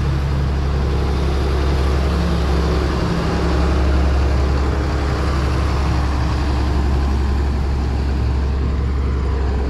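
Steady low hum of a running motor, with no change in pitch or level.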